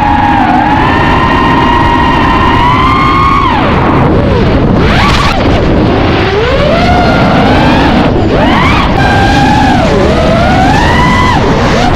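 FPV quadcopter's brushless motors (Xing-E Pro 2207 2450kv on 4S) whining, with a rushing noise underneath. The pitch holds high for the first few seconds, then swoops down and back up sharply several times as the throttle is chopped and punched.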